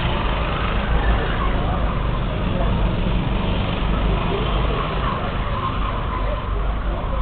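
Racing kart engines running steadily as karts lap the circuit.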